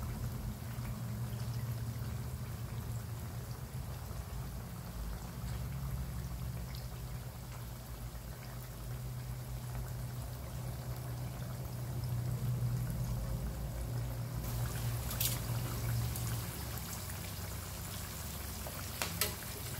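Sultan fish steaks frying in hot oil in a wok on medium heat: a steady bubbling sizzle over a low hum. About three-quarters of the way through the sizzle turns brighter, and a few sharp metal clicks follow as tongs touch the pan.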